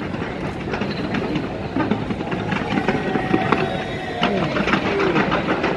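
Fireworks fired from the sides of the Taipei 101 skyscraper, crackling and popping in a rapid, dense barrage, with crowd voices underneath.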